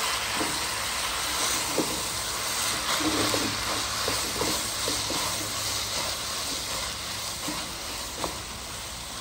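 Sauce-coated noodles and vegetables sizzling in a hot wok while a spatula stirs and tosses them. There are occasional light knocks and scrapes of the spatula against the pan, the sharpest near the end.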